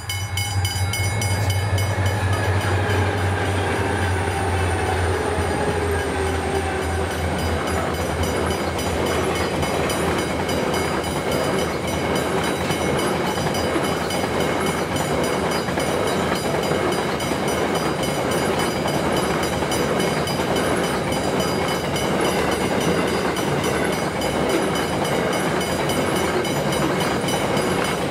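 Freight train passing through a level crossing. A low diesel locomotive rumble with a slowly falling pitch dies away after about eight seconds. It gives way to the steady rolling rattle of grain hopper wagons on the rails, while the crossing's warning bell rings.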